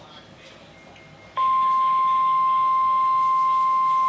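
NOAA Weather Radio's 1050 Hz warning alarm tone: a single steady beep that cuts in about one and a half seconds in, after faint radio hiss, and holds. It signals that a warning is about to be broadcast, here a severe thunderstorm warning.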